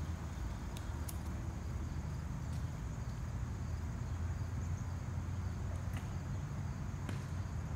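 Steady low outdoor rumble, with a faint steady high buzz of insects and a few faint clicks.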